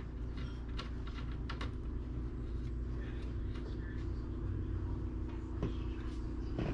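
Faint, scattered clicks and light scrapes of screws being turned back into a desktop PC case, over a steady low hum.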